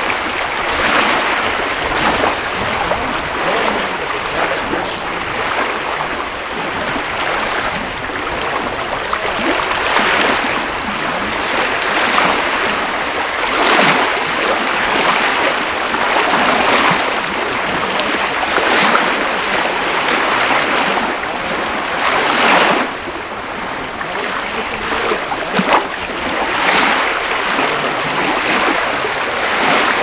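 Sea waves breaking and washing up on a beach: a steady hiss of surf that swells with each wave every few seconds.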